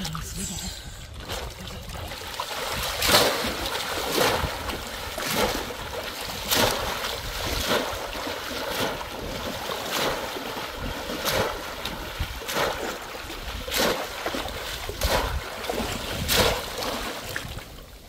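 Shallow paddy-field water splashing as people wade and lunge through it, a sharp splash about every second over a steady wash of water.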